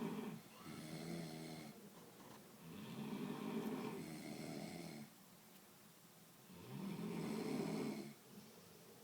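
Sleeping people snoring: low-pitched, drawn-out snores one after another with short quiet gaps between them. One ends just after the start, and new ones begin about half a second, three seconds and seven seconds in. The one in the middle is the longest, about two seconds.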